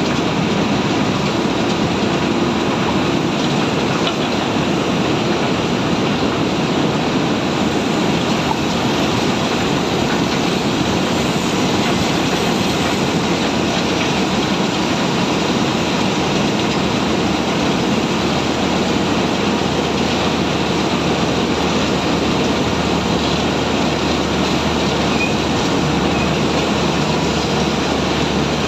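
Heavy diesel machinery running steadily, a loud dense noise that does not change.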